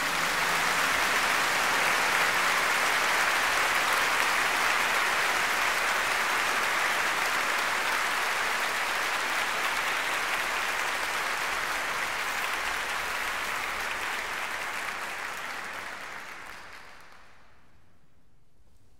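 Concert audience applauding, a dense, even clapping that dies away a couple of seconds before the end.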